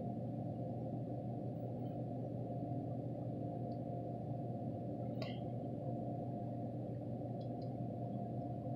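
Steady low hum of room background noise, with a faint click about five seconds in.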